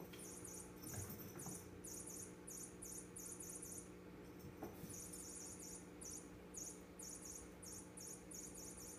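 Faint, regular high-pitched chirping, about three chirps a second, pausing briefly a little before the middle, over a steady low hum. Two soft thumps come about a second in and near the middle.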